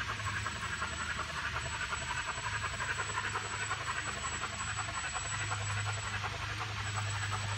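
Garden-scale model train running on an outdoor track: a fast, even chuffing hiss over a low steady hum.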